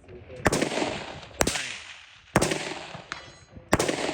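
Four rifle shots from an AR-style rifle, fired about a second apart, each with a trailing echo. A fainter, ringing click sits between the third and fourth shots.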